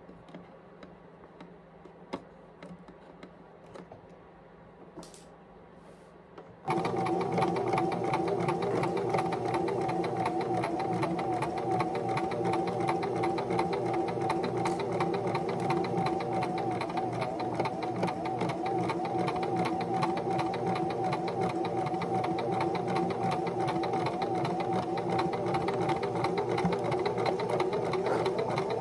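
Small electric domestic sewing machine stitching a seam in gray knit fabric, a steady fast run of needle strokes. It starts abruptly about seven seconds in, after a few soft clicks of the fabric being handled.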